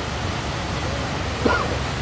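Steady rushing noise of large ocean waves breaking on the shore. A short sharp sound with a quick pitch glide cuts in about one and a half seconds in.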